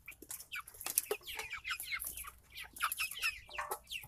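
A flock of Red Ranger broiler chickens, about seven weeks old, clucking. Their many short calls drop in pitch and overlap several times a second.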